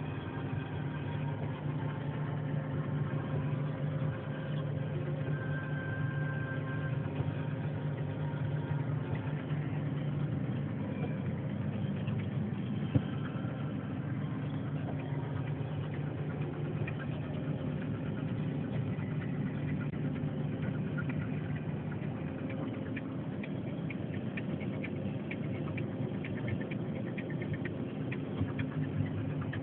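MAN TGS truck's diesel engine running with a steady low drone, heard from inside the cab. A single click about halfway through, and a light rapid ticking joins in near the end.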